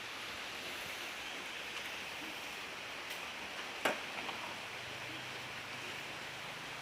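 Steady hiss of falling rain, with a single sharp click about four seconds in.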